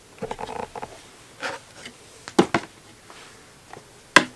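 Handling of a camera box and its packaging during unboxing: a quick flurry of small clicks and rustles near the start, a brief scrape, then a few sharp knocks, the loudest one near the end.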